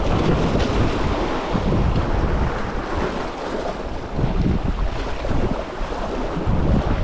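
Wind buffeting the microphone in gusts, over the wash of sea waves.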